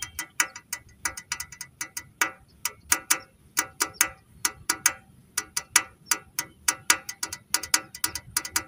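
Plastic toy tractor pushed along by hand, its wheels' gearing clicking rapidly and unevenly, several sharp clicks a second, like a ratchet.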